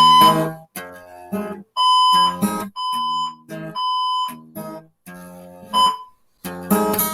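Fire alarm beeping over acoustic guitar strumming: loud, steady, high-pitched beeps about half a second long, with three in a row a second apart in the middle, in the three-beep pattern of an evacuation alarm.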